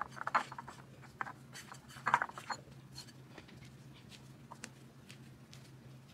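Hands working a ball of bread dough, giving a few short rubbing and patting sounds in the first half and then only an odd light tap. A steady low hum runs underneath.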